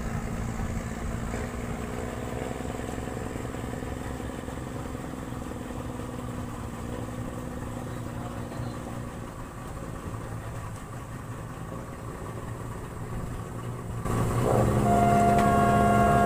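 Boat engine idling with a steady low hum. About two seconds before the end the sound gets louder and higher steady tones come in over it.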